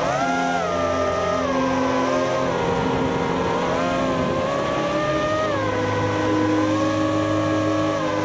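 A five-inch FPV freestyle quad's Racerstar 2205 brushless motors whining, the pitch rising and falling several times as the throttle is worked.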